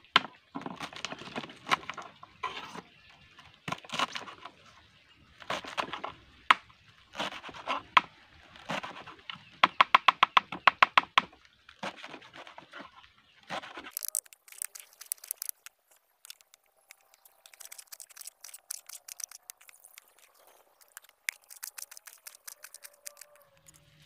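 A kitchen knife chopping chard stalks and leaves on a wooden cutting board, in runs of quick strokes, one run of about a dozen fast strokes. About halfway through the strokes lose their low thud and sound thinner.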